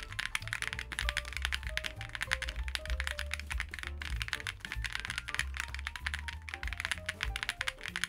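Fast, continuous typing on a LEOBOG Hi75 mechanical keyboard, an aluminium-cased, gasket-mounted board with PBT keycaps: a dense run of keystroke clicks. Background music with a melody and bass plays under it.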